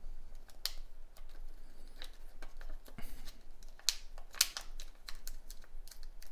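Soft plastic coin flip crinkling and clicking as a silver coin is slid out and handled: a run of irregular small ticks and rustles, the sharpest two a little after halfway.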